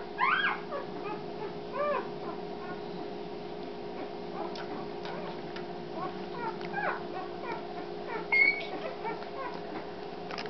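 Newborn Doberman puppies squeaking and whimpering while they nurse: short rising-and-falling cries scattered throughout, a few louder ones near the start and one sharp squeal about eight seconds in. A steady low hum runs underneath.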